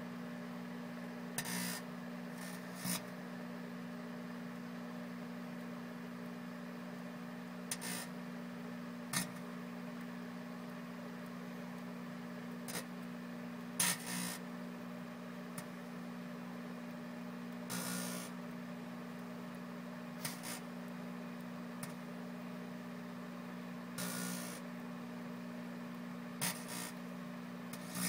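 Galanz microwave oven running with a steady low hum while a metal fork inside arcs. Irregular sharp snaps and short crackling bursts of sparks come every few seconds, about a dozen in all.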